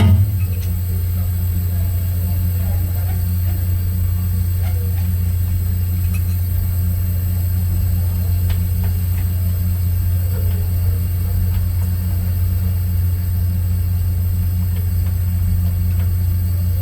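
Steady low hum of the vessel's running machinery, unchanging throughout, with a knock right at the start and a few faint clicks of tool work.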